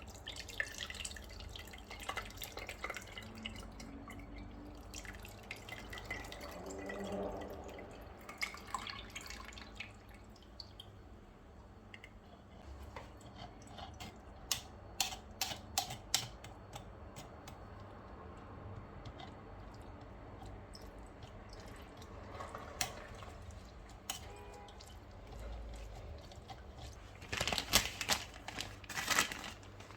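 Kitchen food-prep handling sounds: scattered clicks and taps of utensils and containers, with liquid dripping, and a cluster of sharper clicks near the end.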